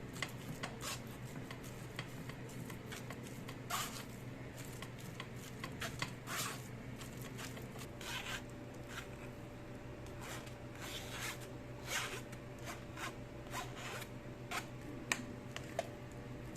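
Irregular run of short scraping and rubbing strokes from hand food preparation in a kitchen, over a low steady hum; a faint steady tone comes in about halfway through.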